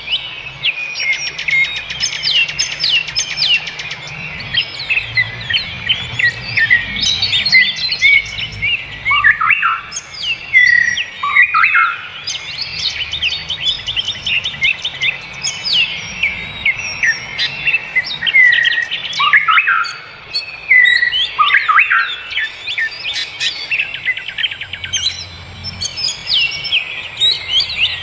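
Wild birds chirping and singing, many overlapping calls of quick chirps, trills and short falling whistles with hardly a pause.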